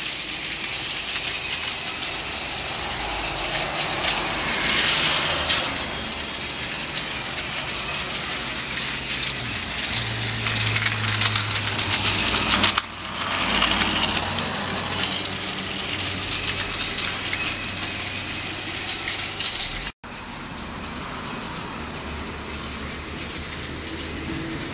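Battery-powered Takara Tomy Plarail toy trains running on plastic track: a steady mechanical rattle with dense clicking from the small motors, gears and wheels. The sound changes abruptly twice.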